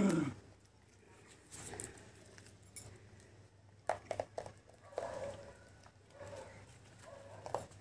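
Rhesus macaque biting and chewing a piece of guava: a few faint crunches and clicks over low background, clustered a little past the middle. A short louder sound dies away at the very start.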